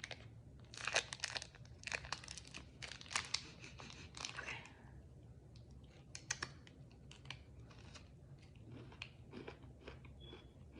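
Snack bag of Kit Kat popcorn crinkling and rustling as it is handled and opened, dense crackles for the first few seconds. After that come sparser crunches of the popcorn being eaten.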